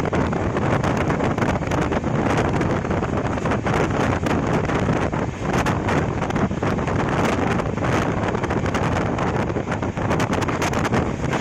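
An LHB express train coach running at speed, heard from on board: a steady rush of wheel and running noise with wind buffeting the microphone.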